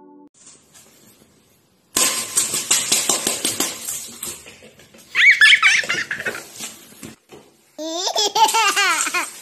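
A person laughing in repeated bursts over a steady background hiss, loudest about three seconds in and again near the end. The first two seconds are almost quiet.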